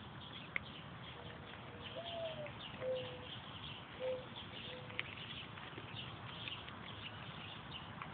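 Mourning dove cooing its song: a drawn-out first coo that rises and falls, then three shorter, lower coos. Faint high chirping of small birds runs throughout, with two sharp ticks, one just after the start and one about five seconds in.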